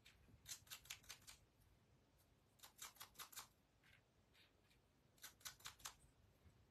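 Small paper pieces rubbed against a handheld sanding tool to distress their edges: faint, quick scratchy strokes in three runs of about five, with a couple of single strokes between.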